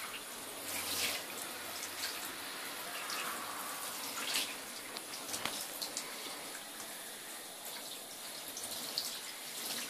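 Handheld shower head spraying water onto a wet cat and the bathtub floor: a steady hiss of running spray, with a few brief sharper splashes.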